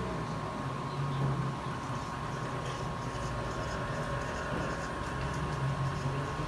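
Faint short scratches of a felt-tip marker writing on a plastic-covered paper chart, over a steady low hum and a thin steady whine.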